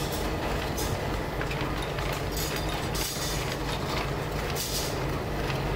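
Motor-driven sheet-metal rolling machine running steadily, with a constant low hum and its chain-driven gears and rollers rattling as a steel sheet feeds between the roller dies. A couple of sharper metallic clanks come about a second in and again near the end.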